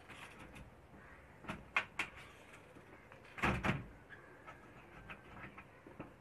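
Several sharp knocks: three close together about a second and a half in, then a louder cluster of three or four about three and a half seconds in.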